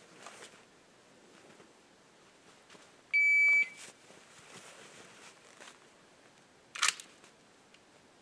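An electronic timer beeps once, a steady high tone about half a second long about three seconds in, most likely the start signal after the 'ready' call. A short sharp snap follows near seven seconds in.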